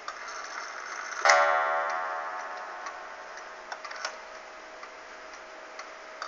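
An 1894 Ansonia Habana wall clock strikes once, a single ringing note about a second in that dies away slowly over several seconds, while the movement ticks faintly.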